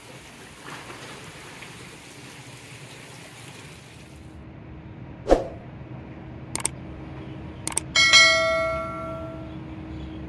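Steady hiss of falling water for about the first four seconds, then a subscribe-button sound effect: a few sharp mouse clicks followed by a bright notification-bell ding that rings out for about a second and a half.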